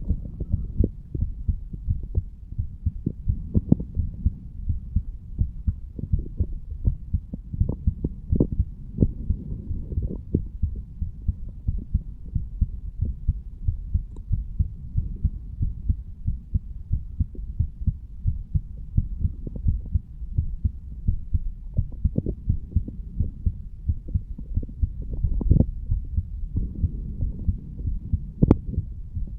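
A man's heartbeat recorded over the mitral valve area of the chest: a steady, repeating series of low, dull thumps, the lub-dub of the heart valves closing, over a continuous low rumble.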